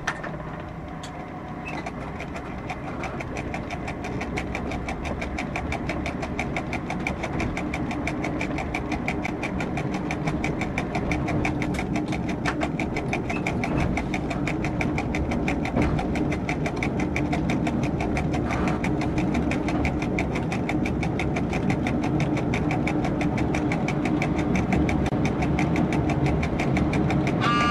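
Diesel railcar engine running, heard from the driver's cab as the train pulls slowly away, growing gradually louder, with a fast, even ticking throughout. A short high tone sounds right at the end.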